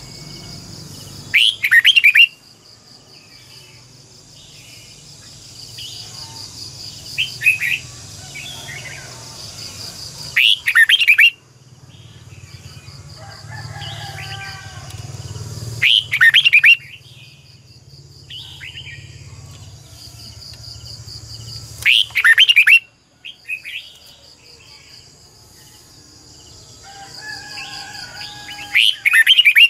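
Red-whiskered bulbul singing: five short, loud, rapid song phrases, one about every six seconds, with softer chirps between them. Under the song runs a steady, high, pulsing insect buzz.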